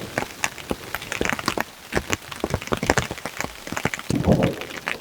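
Rain falling, with drops tapping irregularly and sharply on a nearby surface. A louder low rumble comes about four seconds in.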